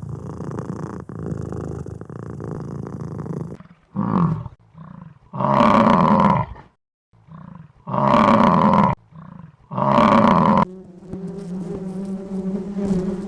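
A large animal roaring: a few seconds of low rumbling, then three loud roars about two seconds apart with shorter grunts between them. Near the end a steady insect buzz begins.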